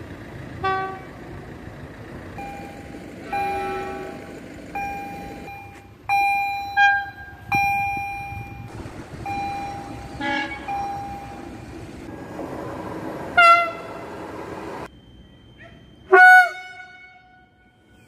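A string of train horn blasts from several different trains, one after another: the Rp1 'attention' warning signal (sygnał baczność) that Polish train drivers sound. Some toots are short and some are held for a second or two, with train running noise between them. The loudest two blasts come near the end.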